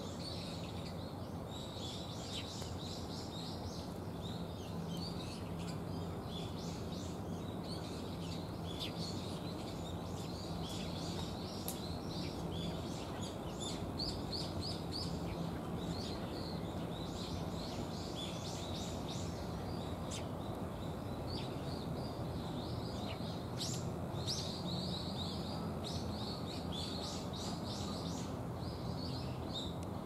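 Small birds chirping and calling again and again in the trees, short high notes that come in quick runs, over a steady low background rumble.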